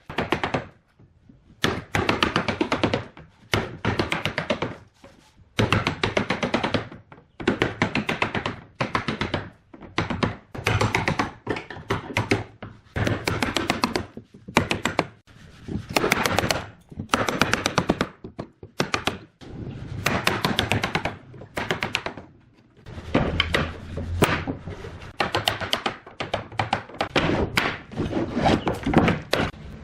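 Hand tools working wood: rapid wooden tapping and knocking in repeated bursts of about a second each, with short pauses between them.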